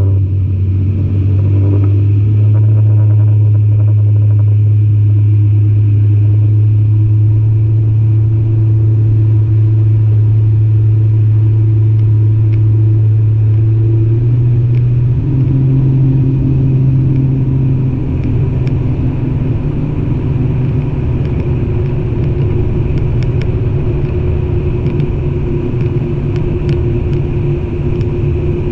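An engine running at a steady speed with a low, loud hum. The pitch steps up about halfway through and the sound turns rougher a few seconds after that.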